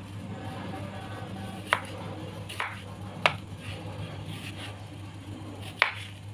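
Kitchen knife cutting green tomatoes on a cutting board: four sharp knocks of the blade against the board at uneven intervals, the last near the end.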